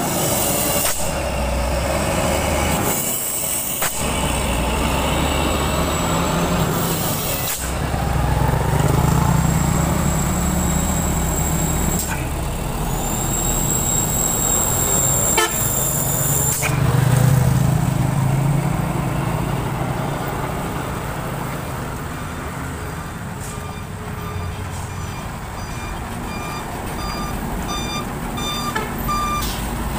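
Heavy diesel trucks driving past close by one after another, their engines swelling loud as each one goes by. Near the end a short electronic beep repeats at an even pace, several times.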